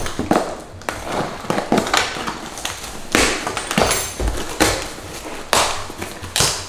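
A small cardboard box being opened by hand: an irregular run of scrapes, rustles and light taps from the packaging.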